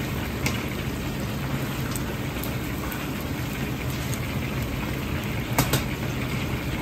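Hot oil sizzling as batter-coated chicken drumettes deep-fry in a wok, over a steady low rumble from the wok range. A few sharp ticks, the loudest two close together near the end.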